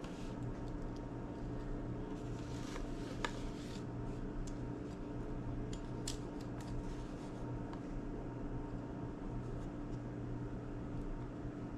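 Small, scattered clicks, taps and scratches of hands and small tools working on an opened iPod classic's parts, over a steady electrical hum.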